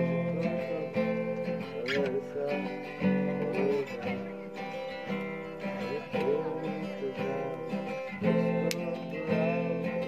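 Acoustic guitar being strummed, chords ringing out, with a fresh, louder strum every second or two.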